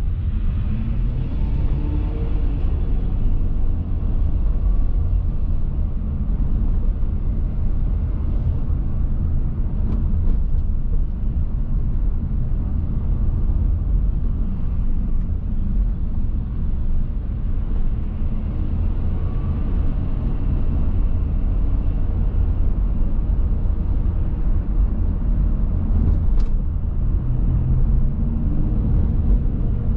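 Steady low rumble of a car driving along a city street: engine and road noise from the moving vehicle.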